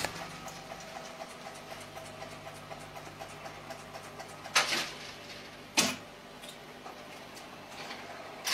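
Jukebox record-changing mechanism running: a steady motor hum with quick regular ticking, and two louder clunks about halfway through as the mechanism moves a record into place.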